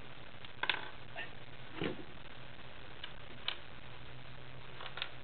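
Plastic Lego minifigures and their stands being handled and set down on a tabletop: a few scattered light clicks and taps over a faint steady low hum.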